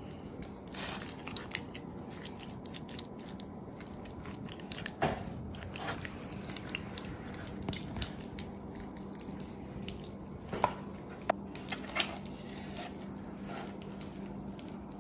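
Wet squelching and smacking of hands rubbing a thick marinade paste into a raw leg of lamb and turning it on a metal baking tray, with scattered short sharp slaps, the loudest about ten and twelve seconds in. A faint steady hum runs underneath.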